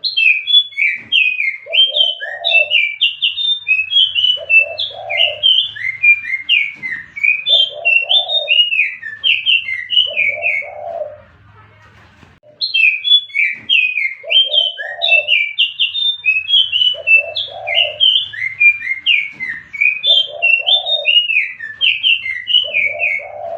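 Recorded lure call of the 'jongkangan biru' songbird: a fast, chattering song of high chirps, with lower rough notes every second or two. The phrase stops for a moment about halfway and then plays again the same way, as a looped call used to lure the bird in.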